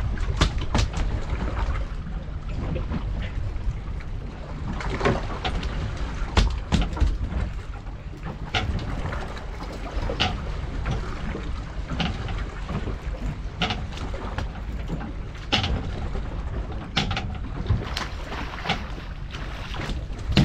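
Sportfishing boat's engine idling, a steady low rumble under wind and water noise, with scattered sharp clicks and knocks every second or two.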